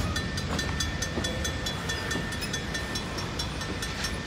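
Griswold mechanical crossing bell ringing in a fast, even run of strikes, about four to five a second, with a flat tone, though it still works. Under it runs the steady rumble of freight cars rolling over the crossing.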